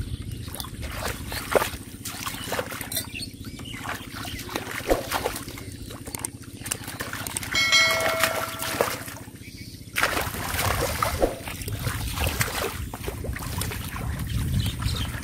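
Shallow muddy water splashing and sloshing irregularly as hands grab at catfish in it. A brief high-pitched call sounds about eight seconds in.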